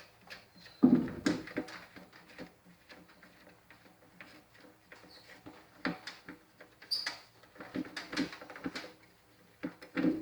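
A wrench loosening and removing the nut that holds a riding mower's key switch: irregular metallic clicks, scrapes and knocks, the loudest about a second in and a flurry of clicks near the end.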